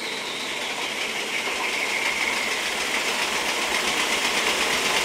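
Homemade wooden-framed bandsaw running, its blade on old wheelchair wheels driven by an electric motor through a V-belt: a steady mechanical whir with a high whine, getting louder over the first couple of seconds and then holding steady.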